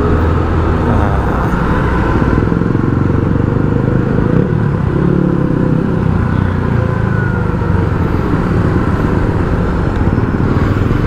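Motorcycle engine running while riding, heard steadily through a helmet-mounted action-camera mic with wind noise, the engine note shifting briefly about halfway through.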